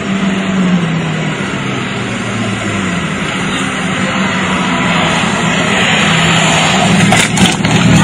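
Subaru Impreza rally car's turbocharged flat-four engine running hard at speed, growing louder as it approaches. A few sharp knocks come near the end as the car runs off the road.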